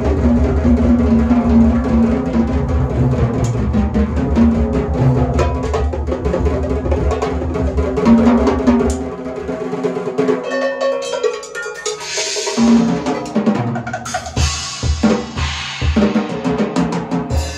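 Large drum kit played hard: rapid strikes across snare, toms and bass drum over a sustained low ringing for the first half. About ten seconds in it thins to sparser, spaced hits with cymbal crashes.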